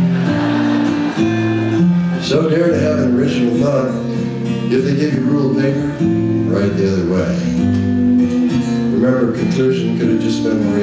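Live country music: an acoustic guitar strumming chords under a lap steel guitar playing a melody with notes that slide and bend between pitches.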